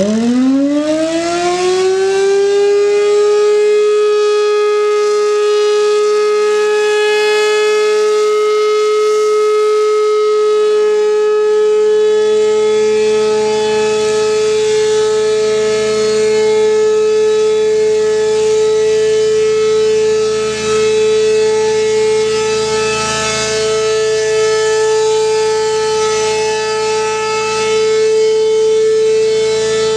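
Trailer-mounted, engine-driven mobile siren winding up quickly over about two seconds to a single steady wail. As the horn rotates, its overtones swell and fade.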